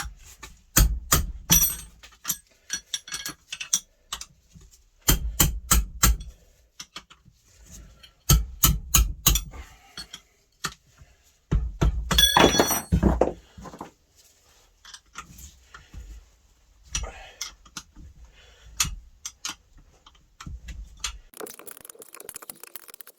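Metal-on-metal hammer strikes on a spanner, coming in bursts of three or four quick blows a few seconds apart, with lighter metal clicks between. The blows are knocking loose the tightly torqued nuts that hold a differential's ring gear.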